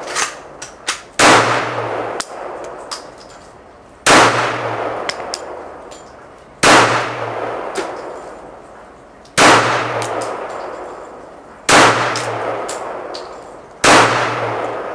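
Kel-Tec PF9 9mm subcompact pistol firing Magtech 124-grain rounds, six single shots about two to three seconds apart, each followed by a long echoing decay, with a few light metallic clinks between the first shots. The pistol cycles through the magazine without a failure to eject.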